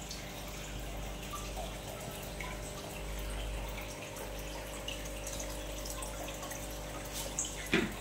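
Aquarium water trickling and dripping with small bubbling ticks from the tank's aeration, over a steady low hum from the pump. A louder brief sound comes near the end.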